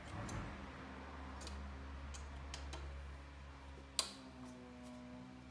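An Allen key clicking in and against the metal deck screws of a Razor E300 electric scooter as the middle screws are turned out: scattered light ticks with one sharper click about four seconds in, over a low steady hum.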